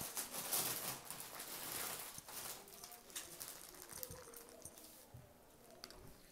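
Pure silk stole rustling and swishing as it is handled and unfolded. It is loudest in the first two seconds, then softer with occasional light clicks.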